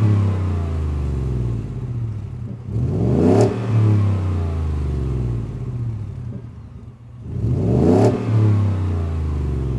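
Ford F-150's engine through a Magnaflow black-tip dual exhaust that keeps the stock resonator, revved from idle: it is falling back from one rev at the start, then is revved twice more, about three and eight seconds in, each time climbing in pitch and settling back to idle. The tone is a good bit deeper than the factory exhaust.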